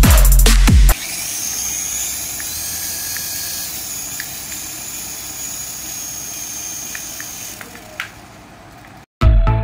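Toy RC helicopter's small electric rotor motor running in the hand, a steady whir with a high thin whine, then winding down with a click near the end. Electronic music plays for the first second and comes back just before the end.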